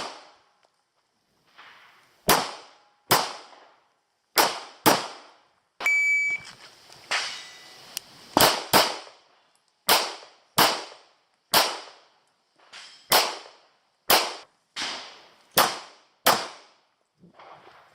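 Pistol shots fired in a practical-shooting course of fire: about fourteen sharp reports, many in quick pairs, with a short ringing tone about six seconds in.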